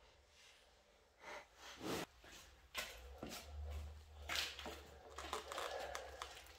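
Faint handling noise as the motorcycle's handlebar riser clamps are loosened and lifted off: scattered metal clicks and knocks with gloves rustling, a few strokes a second apart.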